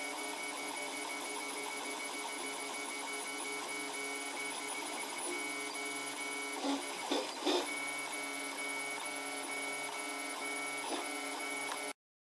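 3D printer running a print, its motors giving a steady whine of several fixed tones, with three short louder bursts about two-thirds of the way through. The sound cuts off abruptly near the end.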